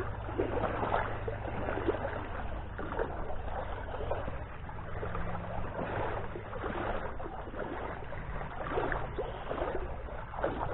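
Flowing river water running and splashing, with a low steady rumble underneath.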